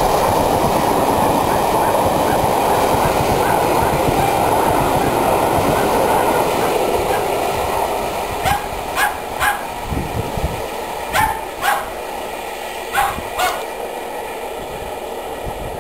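Steam-hauled train of coaches rushing past at speed behind GWR Hall Class locomotive 4965, a loud steady rumble of wheels on rail that fades over about eight seconds as the train goes away. Then a small dog yaps seven times in short groups of three, two and two.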